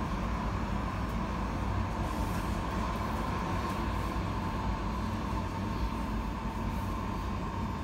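Interior sound of a KVB light-rail tram running between stops: a steady low rumble of wheels on rails and running gear, with a steady high whine throughout.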